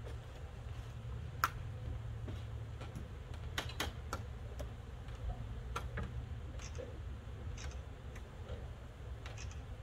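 Scattered light clicks and taps, about a dozen at irregular spacing, over a low steady rumble.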